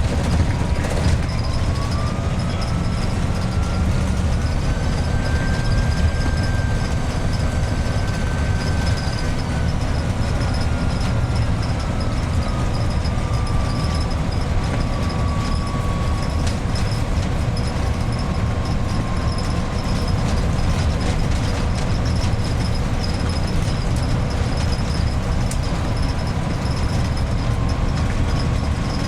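Iveco 170S28 bus's front-mounted diesel engine running at road speed under a steady low rumble, with its turbocharger whistling shrilly. The whistle climbs over the first few seconds, holds, slowly sinks back, then rises a little again near the end.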